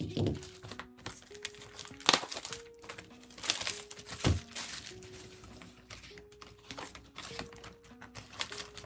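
Plastic wrapping being crinkled and torn open by hand, with irregular sharp crackles, the loudest about two seconds in and again a little past four seconds. Soft background music with a slow melody of held notes plays underneath.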